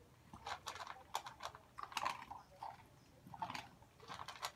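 Dogs, an Akita puppy among them, eating dry kibble from their bowls: quick, crisp crunching and rattling clicks in short bursts with brief pauses.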